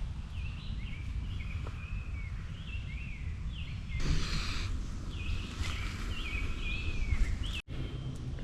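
Songbirds singing in the woods, a string of short slurred whistled phrases repeating every second or so, over a steady low rumble.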